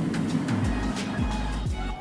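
Background music with a steady beat and deep, falling bass notes.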